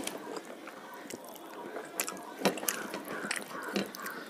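Close-up eating sounds: wet chewing with a few short sharp clicks, and fingers mixing rice and curry on a plate.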